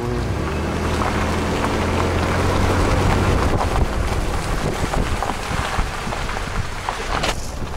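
SUV driving slowly on a wet road: a low engine hum under the hiss of tyres on wet asphalt, with wind rushing over the microphone at the open window. There is a short louder rush near the end.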